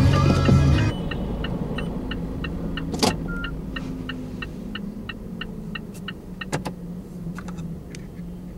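Music and low rumble inside a parked car cut off about a second in, leaving the car's electronic warning ticker going at about three to four ticks a second over a low hum. Two sharp clicks stand out, one about three seconds in and one near six and a half seconds.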